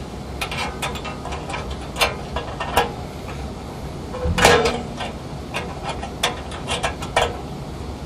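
Irregular metal clicks, taps and rattles of parts being handled by hand in the burner compartment of a sealed-combustion gas water heater, with a louder clatter about four and a half seconds in.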